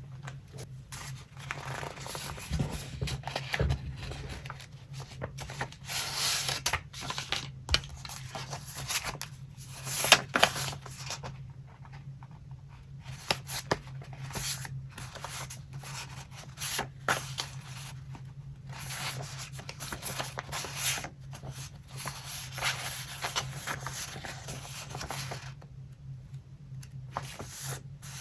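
Paper being handled: irregular rustling, crinkling and scraping of paper sheets and paper-doll cut-outs, with a sharper tap about ten seconds in, over a low steady hum.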